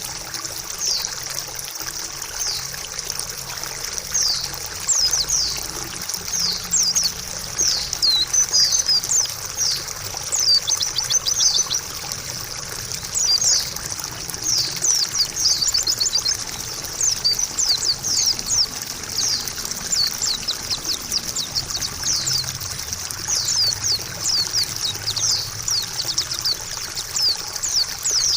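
White-eye (pleci) twittering in dense runs of short, high, falling chirps over steadily trickling water.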